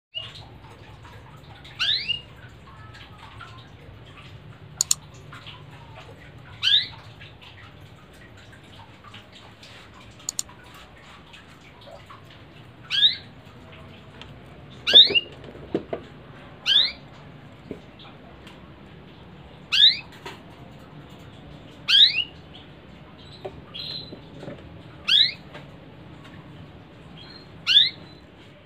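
Domestic canary giving short rising call notes, one every two to three seconds, about nine in all. Two sharp clicks sound in the first half.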